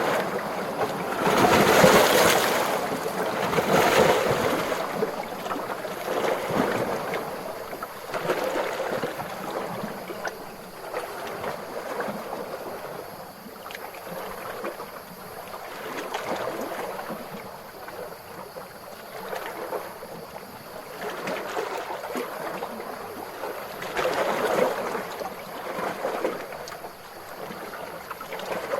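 Calm ocean waves washing in, the surf swelling and falling away every couple of seconds, with the strongest washes in the first few seconds and again near the end.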